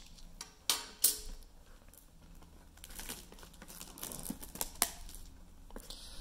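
Hands unwrapping a shrink-wrapped cardboard trading-card box: fingers peel the plastic film and work the box flap, giving light rustling and crinkling with a few sharp clicks and taps, two of them about a second in.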